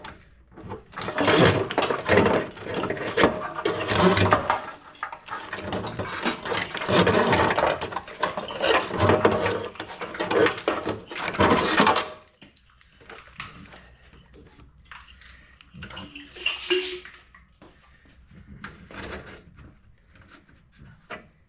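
Dense rustling, scraping and clattering of hands working on parts, for about twelve seconds. Then it drops to scattered lighter clicks and knocks.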